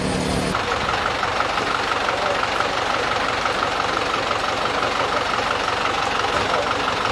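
Motor vehicle engine idling steadily, with a faint high pulsing tone repeating about five times a second.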